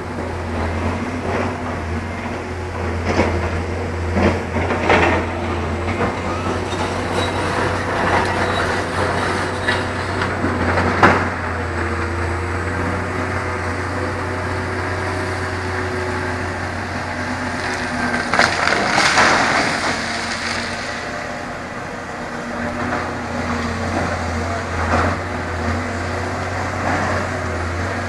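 Heavy machinery and engines running steadily, with scattered knocks and clanks, and a louder stretch a little past the middle.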